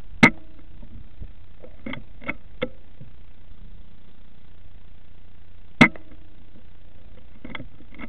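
Weihrauch HW100 KT PCP air rifle fired twice, two sharp cracks about five and a half seconds apart. Each shot is followed about a second and a half later by three lighter metallic clicks as the side lever is cycled to chamber the next pellet. A steady low hum runs underneath.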